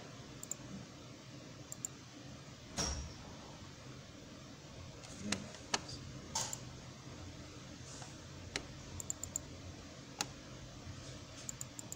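Scattered computer mouse clicks at irregular intervals, a few louder than the rest, over low background noise.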